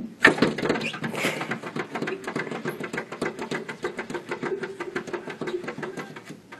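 A cat's paws tapping and scrabbling rapidly against a glass door pane, an even run of about seven clicks a second.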